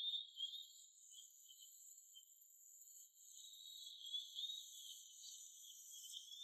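Faint, steady high-pitched chorus of crickets and other insects chirping, with no low sounds beneath it.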